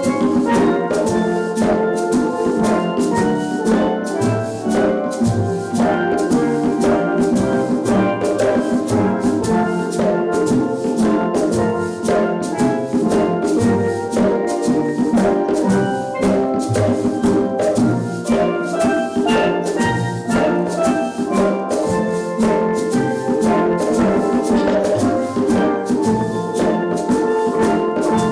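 Steel drum band playing a tune, with steady percussion strokes and deep bass notes underneath.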